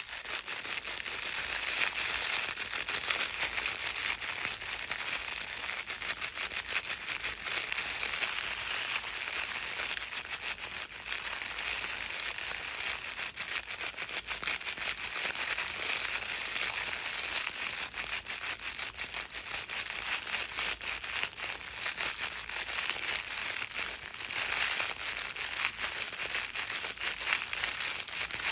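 Baby's crinkle book being squeezed and rustled without a break: a dense, steady crinkling made of many small crackles.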